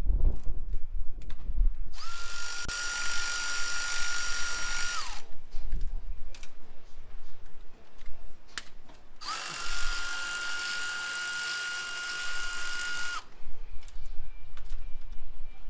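A power drill's motor runs in two bursts of about three seconds each, about two seconds in and again about nine seconds in. Each burst spins up to a steady whine and winds down when released. Light clicks and knocks of hand-tool work come between the bursts.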